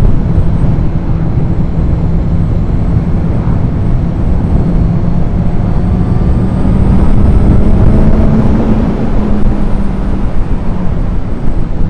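Motorcycle riding at speed, heard from a helmet-mounted camera: heavy wind buffeting over a steady engine drone.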